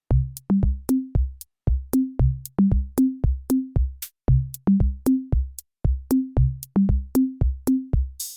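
Background electronic music: a drum-machine beat of deep kick strokes on a few stepping bass pitches, with sharp ticks between them.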